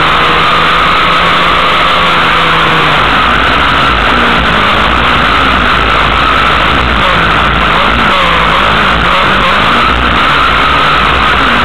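Race car engine heard from inside the car on a dirt track, loud and constant, its revs rising and falling over and over through the corners.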